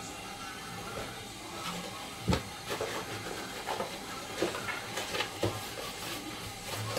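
Steady hiss from a gas cooker with a pan of oil heating on the burner, broken by a few light knocks and clicks, the sharpest about two and a half seconds in.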